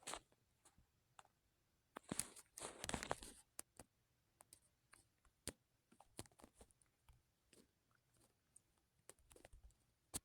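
Faint scattered clicks and taps, with two short rustling bursts about two to three seconds in and near silence between.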